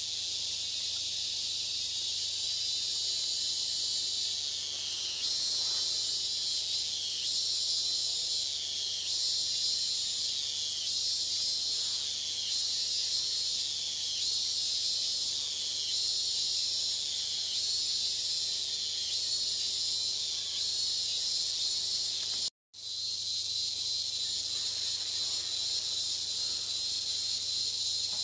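Steady, high-pitched insect chorus shrilling, pulsing about once a second, cutting out for an instant shortly before the end.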